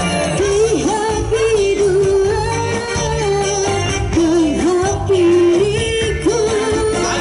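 Kecimol procession music played loud through a sound-system truck: a bending, ornamented sung melody over a steady beat of marching bass drums.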